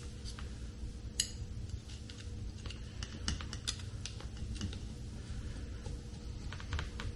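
Faint, scattered small clicks and ticks of a hex driver turning small bolts into the captive lock nuts of a motor mount, as the bolts are started and snugged down.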